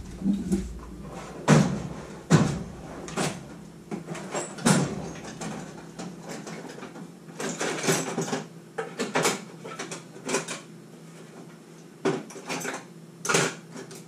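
Irregular knocks, clinks and rattles of hand tools being picked up, rummaged through and put down on a metal workshop bench, with several sharp knocks among them.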